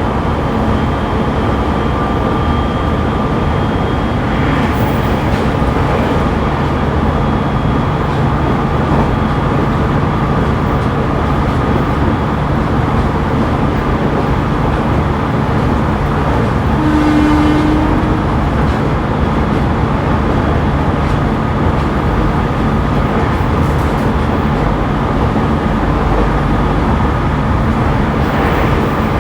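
Interior running noise of a JR E501-series electric train heard from inside its motor car: a steady rumble of wheels and running gear on the rails, with faint steady tones from the traction equipment over it and a short higher tone about halfway through.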